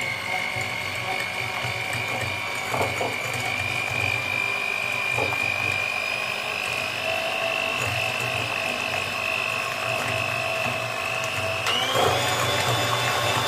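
Electric hand mixer running steadily, its beaters whipping eggs and sugar in a glass bowl until the sugar dissolves. The motor's whine jumps to a higher pitch about twelve seconds in, as it speeds up.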